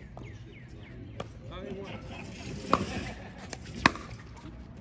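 Pickleball paddles striking a plastic pickleball in a rally: four sharp pops, the loudest two near the middle and about a second later.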